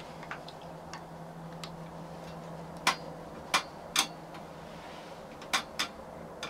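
Five sharp clicks or knocks close by: three about half a second apart, then two more quick ones a moment later, over a faint steady low hum.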